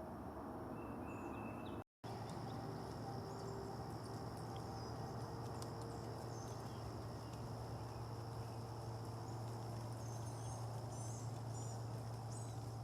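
Outdoor nature ambience: a steady high insect drone and a low steady hum, with short high bird chirps that come most often near the end. The sound drops out briefly about two seconds in.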